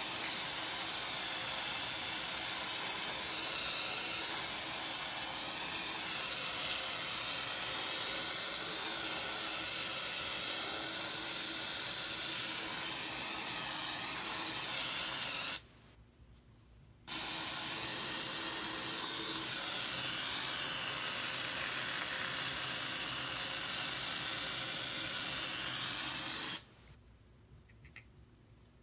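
Aerosol foam can spraying with a steady loud hiss: one long burst, a pause of about a second and a half around the middle, then a second burst of several seconds that cuts off sharply near the end.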